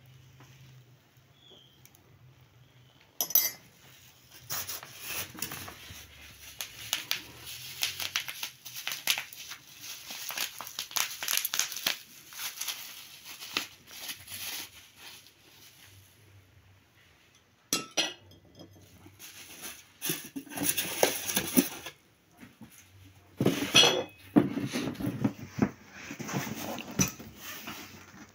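Bubble wrap and plastic packaging crinkling and crackling in bursts as china tea-set pieces are unwrapped from a foam-lined gift box, with occasional clinks and knocks of the china being handled and set down.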